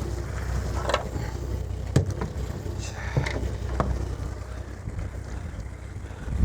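A few sharp knocks, a hammer striking a freshly landed Spanish mackerel to stun it, the loudest about two seconds in. Under them runs a steady low rumble of the fishing boat, with wind.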